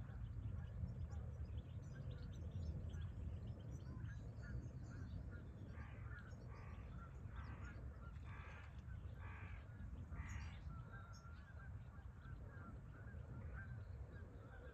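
Geese honking at the water: a run of about six short calls in the middle, over a steady low rumble.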